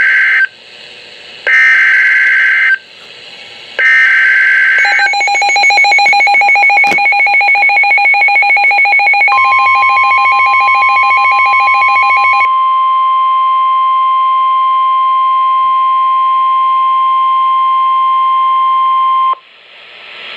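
Emergency Alert System tones: three short bursts of SAME header data screech, then a pulsing two-tone attention signal lasting about seven seconds. Partway through, a steady single-pitch alert tone joins it and carries on alone for several more seconds before cutting off shortly before the end.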